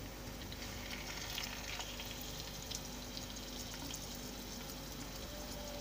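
Batter-coated chicken fillet pieces frying in oil in a pan, a quiet sizzle with scattered small crackles; the oil is on medium heat and only moderately hot.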